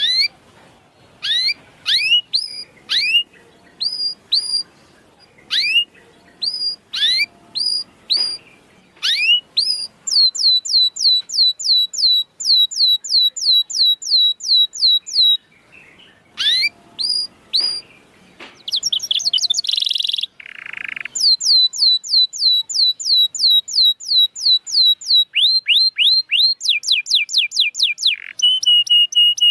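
Canary singing: short rising chirps in small groups, then long rolls of fast repeated falling notes, about three a second. A brief rough harsh note comes near the middle.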